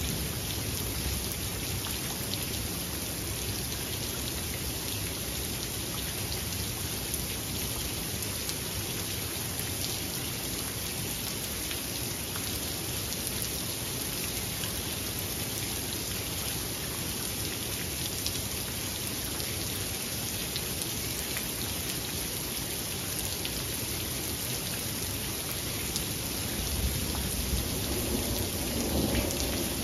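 Steady rain falling, with scattered drops ticking. Near the end a low rumble of distant thunder swells up.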